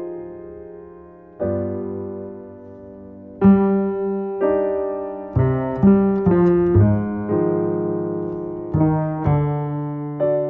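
Solo jazz piano playing slow chords, each struck and left to ring and fade; a quicker run of notes follows the loudest chord in the middle.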